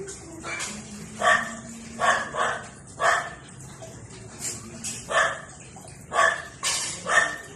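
A small dog barking: about eight short, sharp barks at irregular intervals, some close together in pairs.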